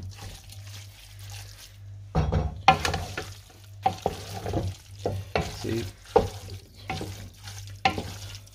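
Wooden spoon stirring and scraping fusilli pasta and chicken curry sauce around a steel pot, in repeated strokes from about two seconds in, over a low steady hum.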